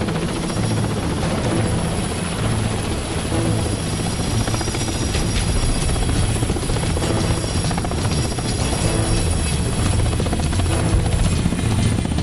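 Steady helicopter noise: a low rhythmic rotor chop under a thin, high, steady whine.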